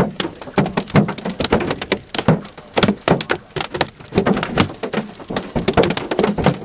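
Hailstones of about three-quarters of an inch striking a car's body and windshield, heard from inside the car: a dense, irregular clatter of hard hits.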